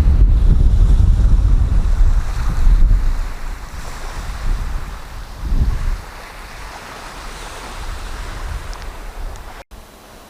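North-easterly wind buffeting the microphone over the wash of sea surf. The gusts are heavy for about the first three seconds, then ease to a lighter steady rush.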